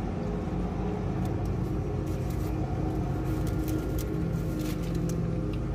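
Steady low hum of a car's idling engine heard inside the cabin, with a few faint clicks over it.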